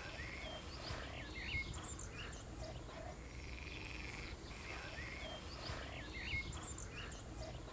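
Faint evening chorus of frogs croaking and trilling in repeated bouts, with short high chirps scattered through it, over a low rural background hum.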